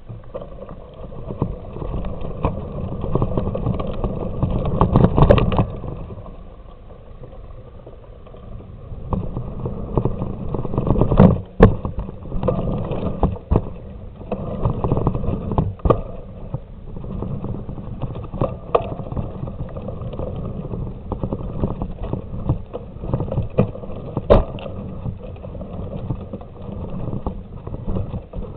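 Bicycle ridden over a dirt jump track: a steady rolling rumble from the tyres on dirt and gravel, with rattles and sharp knocks over the bumps, loudest twice, around five and eleven seconds in.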